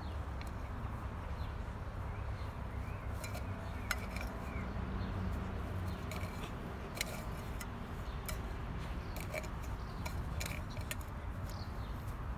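Empty tin can clinking and scraping as a Labrador puppy chews and paws at it: scattered sharp metallic clicks at irregular intervals.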